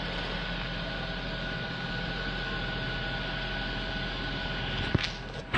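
Steady hum and hiss with a faint high whine, broken by two sharp clicks near the end.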